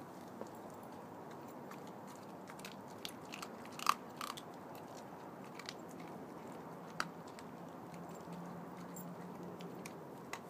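Vizsla chewing and crunching a raw chicken thigh: irregular sharp crunches, the loudest a double crunch about four seconds in.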